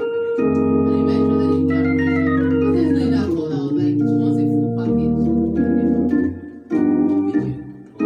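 Yamaha electronic keyboard played with an organ voice: held chords over a low bass line, with a quick run of notes falling about two to three seconds in, and the chords breaking off briefly twice near the end.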